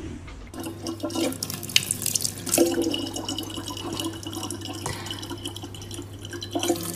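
A thin stream of water running from a gooseneck tap and splashing into a plastic cup below, starting about half a second in.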